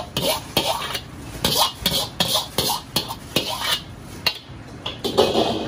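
Irregular clinks and clatter of metal kitchenware, two or three sharp strikes a second.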